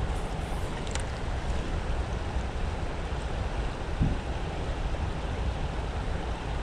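Steady rush of river current with wind buffeting the microphone; a single low thump about four seconds in.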